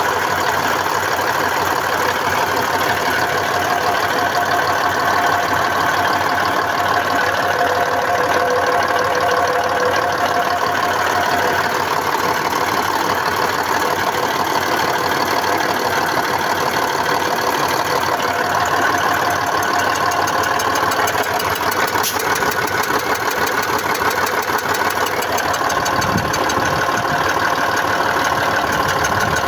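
YaMZ-236 V6 diesel engine running steadily at idle with a metallic knock. The owner traces the knock to the fuel injection side, suspecting the injectors or the high-pressure injection pump.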